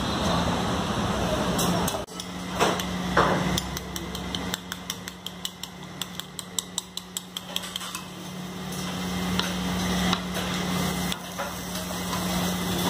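A steel spoon beating an egg mixture in a bowl, clinking sharply against the bowl about three to four times a second, over a steady low hum.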